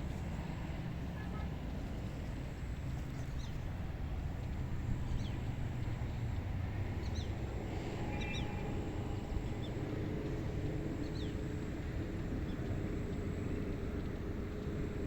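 Steady wind ambience over a rice paddy, a constant low rumble, with scattered short high bird chirps through the middle.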